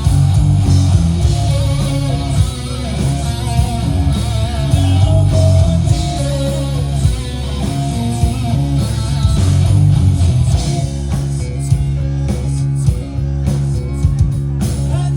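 Guitar-driven rock music: electric guitar with bass, playing continuously.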